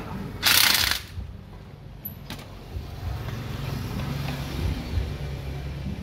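Electric monoblock surface water pump motor running, a steady low hum that grows stronger about halfway through, after a short loud burst of noise about half a second in.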